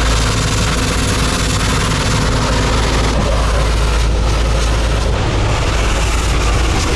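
High-pressure water jet from a deck hose hissing steadily as it blasts marine growth off a wooden lobster trap. Beneath it runs the low, steady drone of the boat's engine.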